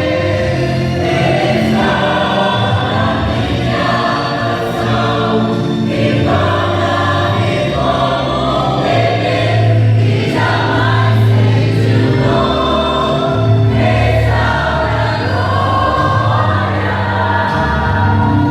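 Church choir singing a gospel song over a steady bass accompaniment, with held notes changing every second or two.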